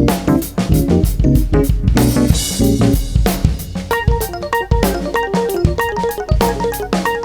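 Jazz-fusion band playing live, with the drum kit (kick, snare and cymbals) driving a busy rhythm under bass and chord notes. About four seconds in, a higher melodic line of quick notes comes in over the groove.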